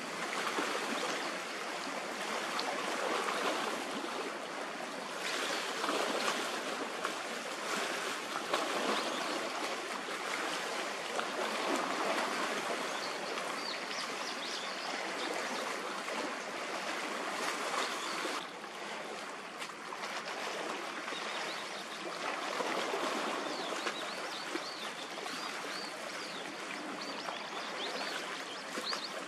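Water washing and lapping close by, a steady rushing, splashing noise that swells and eases, with a few faint high chirps near the middle and near the end.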